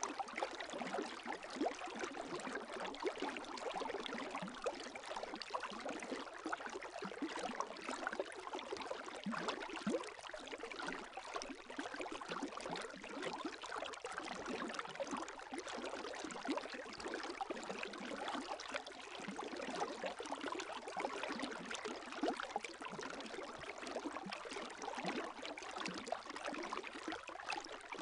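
Gentle lake waves lapping at the shore: a continuous, even sound of small splashes and trickling water, without distinct surges.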